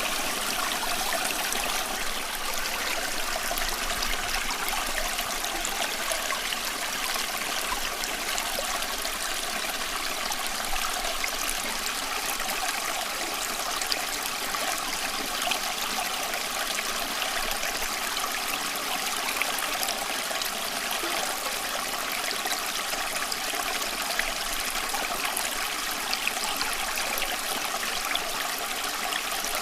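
Running water trickling and splashing steadily, an even rushing hiss dotted with small droplet splashes.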